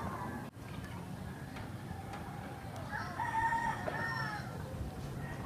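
A rooster crowing once, a drawn-out crow of about a second and a half starting about three seconds in, over a low steady background hum.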